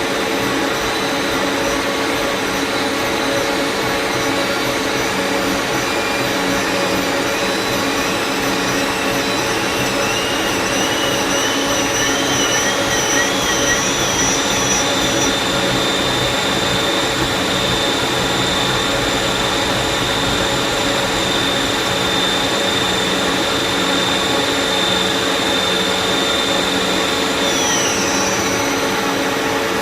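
Lathe running with a steady mechanical hum and noise. A high whine wavers and climbs in pitch through the first half, holds steady, then drops away near the end.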